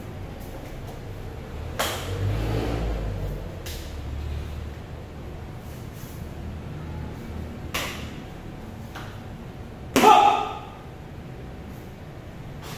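Barefoot steps and stamps on foam mats and knocks from a rattan stick during a solo stick-fighting form: a few short, sharp slaps spread through the passage. The loudest comes about ten seconds in and rings briefly in the hall. A low rumble sits under the first few seconds.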